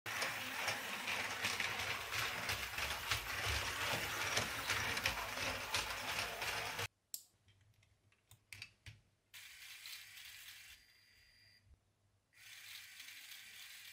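A LEGO WeDo 2.0 toy train's small electric motor and plastic gears clattering loudly for about seven seconds, then cutting off abruptly. A few sharp plastic clicks follow, and twice the motor runs more quietly with a faint high whine.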